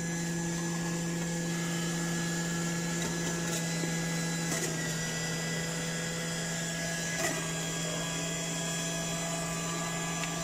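Electric juicer motor running steadily with a constant hum while juicing beetroot, with a couple of light clicks in the middle.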